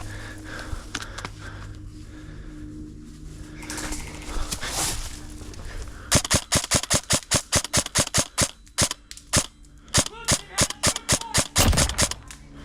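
Airsoft guns firing: a fast string of sharp snapping shots starts about halfway in, several a second, then continues more sparsely as single shots.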